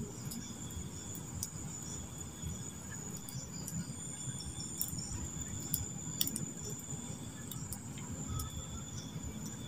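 Crickets trilling steadily at a high pitch, over a low crackling and scattered small clicks.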